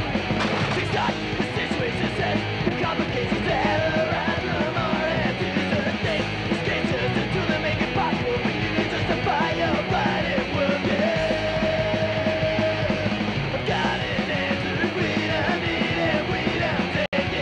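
Punk rock soundtrack music playing steadily, cutting out for an instant near the end.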